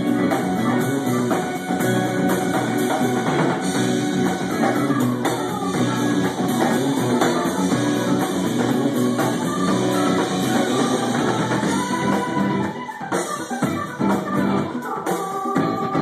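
Live rock band playing: electric guitars, a Nord stage keyboard and a drum kit, with the band dropping back briefly about two-thirds of the way through.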